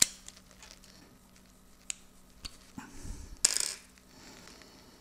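Small metal RF connectors clicking and clinking as they are handled on the workbench: a few light clicks and a short louder rattle about three and a half seconds in.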